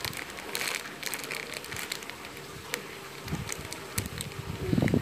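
Clear plastic wrapper crinkling and crackling in irregular clicks as a mini squishy inside it is handled and squeezed, with a short low sound near the end.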